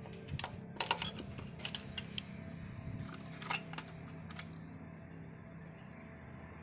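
Light, irregular clicks and taps of small tools and parts being handled, in quick clusters through the first four seconds or so, then stopping, over a faint low hum.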